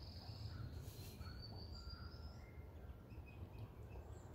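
Faint outdoor ambience: birds chirping in short, high calls, with a thin whistle rising slightly about a second in, over a low steady rumble.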